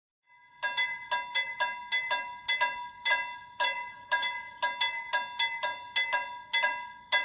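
Railway level-crossing warning bell starting to ring about half a second in, a quick run of metallic dings, about two to three a second, warning of an approaching train.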